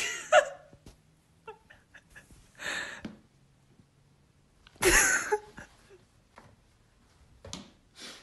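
A person's stifled laughter, heard as a few short breathy bursts near the start, around three seconds in and around five seconds in.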